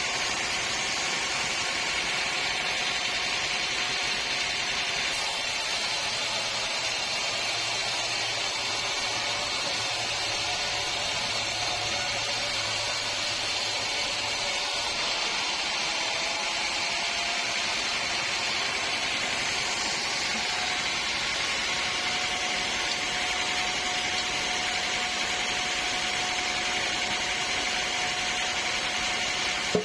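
Sawmill machinery running steadily, a constant mechanical noise with a faint steady tone joining about halfway through.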